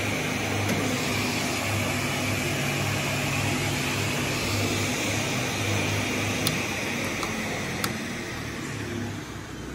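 Robland NZ 3200 panel saw with its main saw and scoring saw running free, no cut, giving a steady motor hum and blade whine; both saw spindles have freshly replaced bearings. A couple of light clicks come through near the middle, and the level eases off toward the end.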